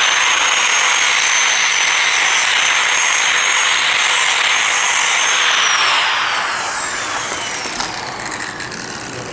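Handheld angle grinder polishing the face of a hardened steel axe head, throwing sparks, with a steady high whine over a grinding hiss. About five and a half seconds in it is switched off and winds down, its whine falling in pitch and fading.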